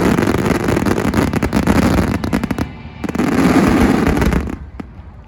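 Aerial fireworks going off in a dense, rapid volley of bangs and crackling, with a brief lull partway through. It stops abruptly shortly before the end, followed by one last single bang.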